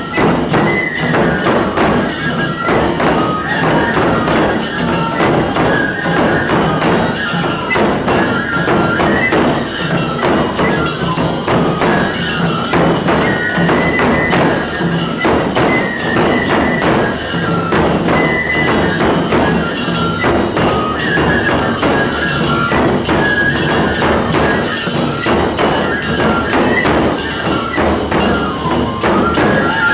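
Aomori nebuta hayashi festival music played live: large taiko drums beaten in a steady, driving rhythm, with shinobue bamboo flutes playing the high melody over them and tebiragane hand cymbals clashing.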